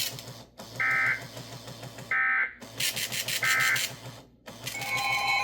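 NOAA Weather Radio emergency alert signal: three short bursts of Specific Area Message Encoding (SAME) header data tones, about a second and a half apart. Near the end the steady 1050 Hz warning alarm tone starts. The alert heralds a Special Marine Warning.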